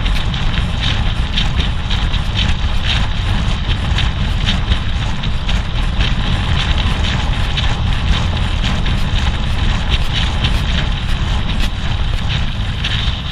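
Steady wind rush buffeting the action-camera microphone on a road bike sprinting at about 60 km/h.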